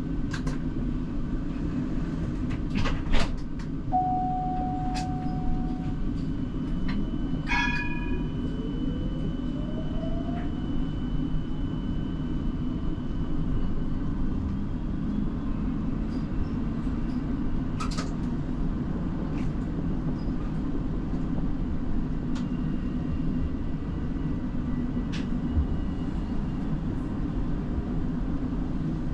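Siemens Combino tram running, heard from the driver's cab: a steady rumble of wheels on rails with occasional sharp clicks. A whine rising in pitch runs from about seven to eleven seconds in.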